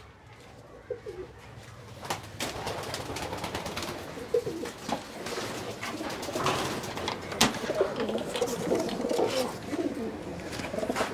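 Domestic pigeons cooing, a low, wavering warble that builds about four seconds in, with scattered sharp clicks and knocks among them.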